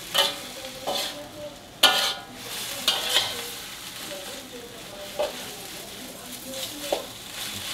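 Kangkung (water spinach) stir-frying in a steel wok over a gas flame: a steady sizzle with a metal spatula scraping and knocking against the wok about seven times, the loudest knock about two seconds in.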